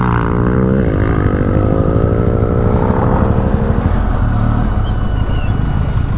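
Benelli TRK 502X motorcycle's parallel-twin engine running while the bike rides slowly over a rough dirt track, its pitch rising and falling with the throttle. The engine note drops back about four seconds in.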